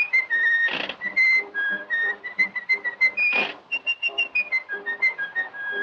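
A jaunty whistled melody of short, hopping notes over a light musical accompaniment, with two brief hissing bursts, one under a second in and one about halfway through.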